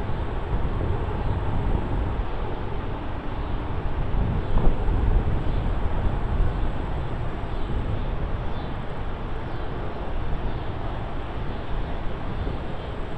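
Wind rumbling on the microphone in uneven gusts, a low unpitched rumble with a stronger gust about four and a half seconds in.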